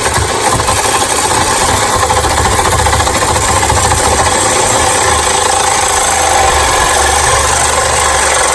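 A handheld power tool running steadily and loudly, with a fast rough rattle underneath, as metal on the bus is being cleaned up.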